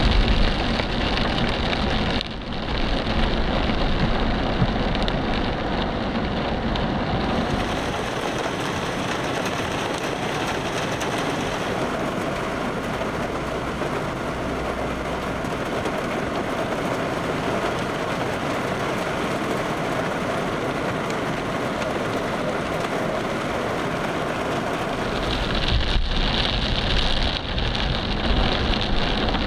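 Heavy thunderstorm rain pouring down onto surfaces, a loud steady hiss. The sound changes abruptly about two seconds in and again near the end.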